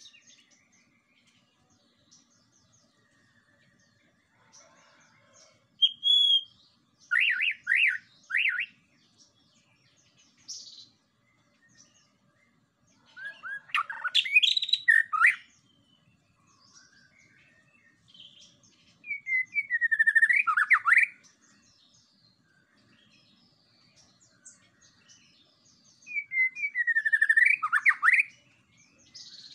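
White-rumped shama singing in four bursts a few seconds apart, each a quick run of loud whistled notes with falling sweeps.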